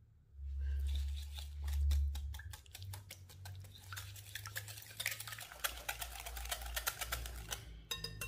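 A kitchen utensil stirring in a mixing bowl, clicking rapidly and irregularly against its sides. A low rumble sits under it, loudest in the first two seconds.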